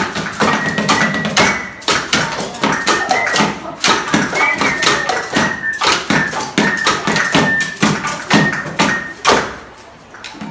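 Improvised classroom percussion: sticks on tins and a plastic container, plus tapping on desks and bottles, in a quick steady rhythm with a thin high tone held over it. The playing stops about a second before the end.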